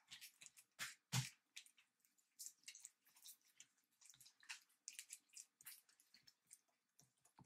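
Green slime mixed with dry diaper filling being stretched and kneaded by hand: faint, irregular sticky clicks and squelches, with one louder squelch about a second in.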